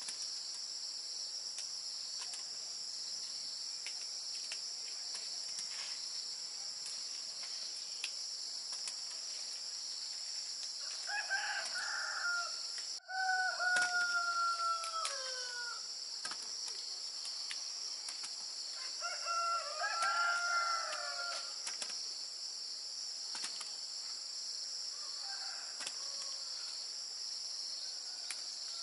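A rooster crows about three times in the middle stretch, each a long call that falls in pitch at the end. Underneath is a steady high drone of insects.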